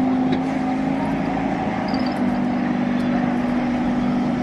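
Illuminated Western Train tram running along the tramway toward the listener, with a steady electric hum over road traffic noise.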